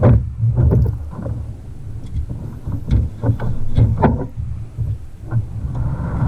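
Wind buffeting the microphone on a fishing kayak: a constant low rumble, broken by several short, sharp noises in the first four seconds.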